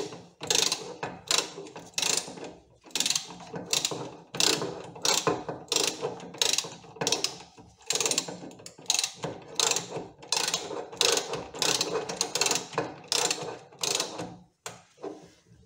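Socket ratchet wrench clicking in quick back-and-forth strokes as a 17 mm bolt is turned down by hand. The clicking stops about a second before the end.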